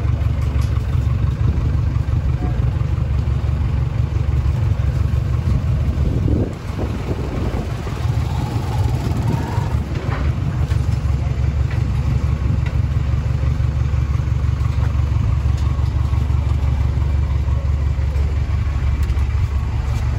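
Motorcycle engine idling close by, a steady low thrum, with faint voices in the background.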